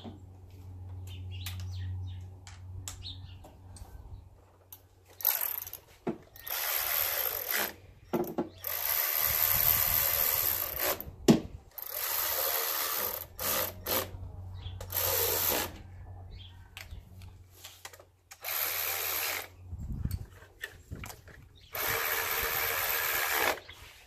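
Milwaukee 12-volt quarter-inch cordless electric ratchet whirring in about eight short runs of one to two seconds each, with pauses between. It is driving in the coil pack retaining bolts.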